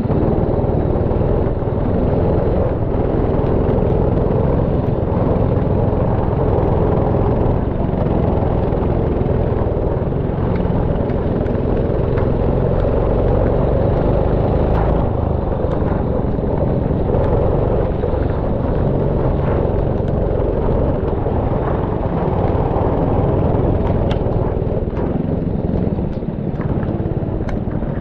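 Go-kart engine running steadily at racing speed, with a dense low rumble and noise over the microphone.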